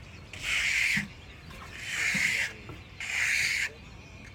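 Hand trowel scraping across a rough rendered wall as it spreads a thick undercoat, in three sweeping strokes a little over a second apart.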